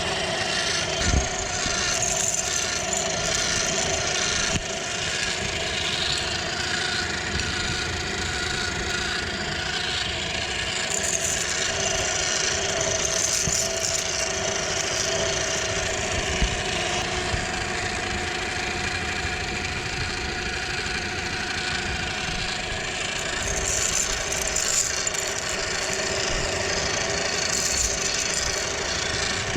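Electric meat grinder motor coming on and running steadily with a hum, crunching and grinding hard-shelled chocolate candies with a dense crackle.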